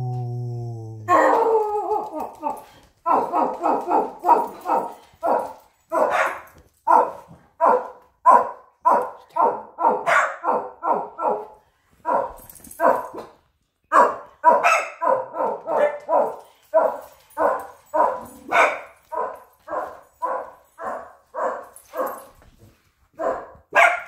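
A small dog barking over and over, about two to three sharp barks a second, with a couple of short breaks. It opens with a flat, low held note of about a second.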